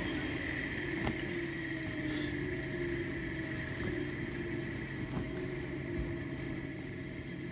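A steady mechanical hum with a faint high whine over it, from the workshop's running pressing equipment, with a few faint clicks as the trousers are handled.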